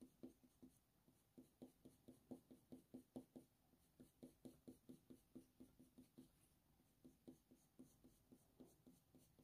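Faber-Castell Polychromos coloured pencil (Bistre) stroking on hot-press watercolour paper: faint, quick short strokes, about four or five a second, with a couple of brief pauses.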